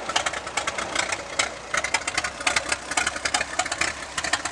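Antique Parrett tractor's engine running at low speed, with a dense, uneven clatter of sharp knocks as the tractor moves off on its steel wheels.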